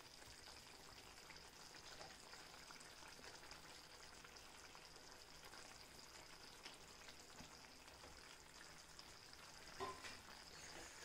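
Near silence: a faint, even sizzle of thick curry gravy simmering in a kadai, with a few light ticks and one soft knock near the end.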